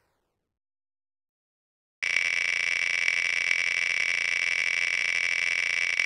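Silence, then about two seconds in the tick sound effect of an on-screen spinning picker wheel starts suddenly. The ticks come so fast that they merge into a steady, high buzzing tone.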